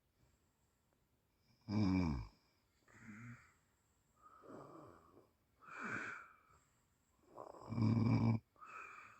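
A sleeping person snoring: two loud snores, one about two seconds in that falls in pitch and one about eight seconds in, with softer breaths and short snores between them.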